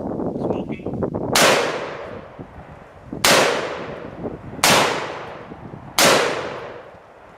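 Four loud, sudden bangs about one and a half seconds apart, each ringing off slowly before the next.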